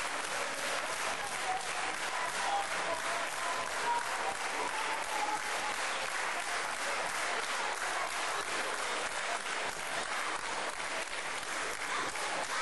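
Wrestling crowd clapping steadily, with a few faint voices in the first half.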